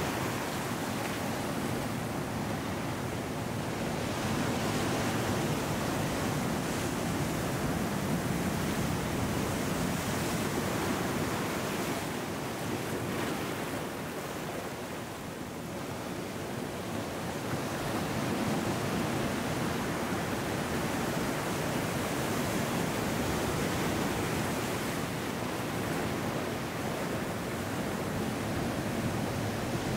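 Ocean surf washing in over a rocky beach: a steady wash of breaking waves, easing off a little about halfway through and building again.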